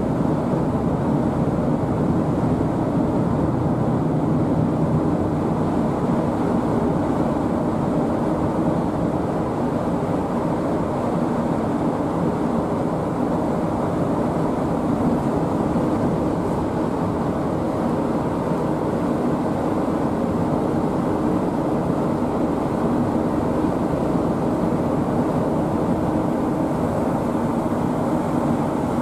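Steady engine drone with a low hum, unchanging throughout.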